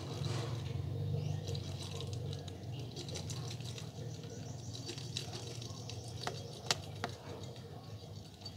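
Small folded paper stars poured from a plastic jar, pattering into a tub of water, with a few sharper clicks near the end.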